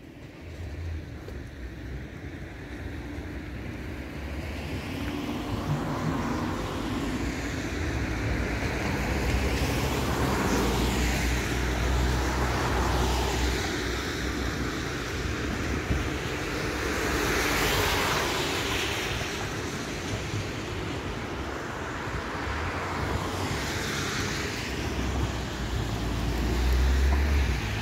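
Long rushing noise of an aircraft passing overhead, building over the first several seconds and then holding, with low wind rumble on the microphone.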